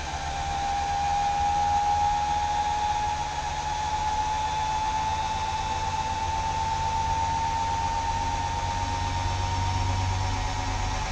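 1968 Oldsmobile Cutlass convertible top's rebuilt electric hydraulic pump motor running steadily as the hydraulic cylinders raise the top. Its whine rises slowly in pitch over a low hum.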